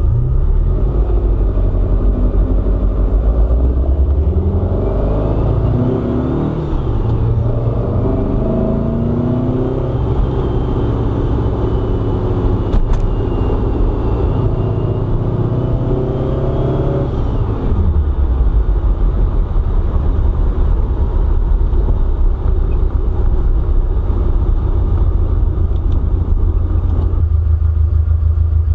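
1973 VW Super Beetle's 1900 cc air-cooled flat-four with twin 40 IDF carburettors, heard from inside the moving car. It runs steadily, then from about four seconds in its pitch climbs and drops several times under acceleration, and about seventeen seconds in it settles back to a steady drone.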